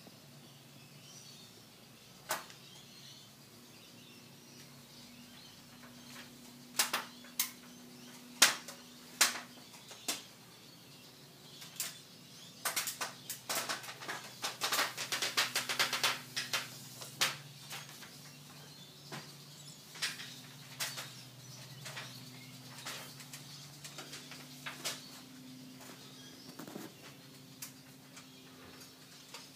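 Scattered sharp clicks and crackles, thickening into a dense crackling run around the middle, over a faint low steady hum.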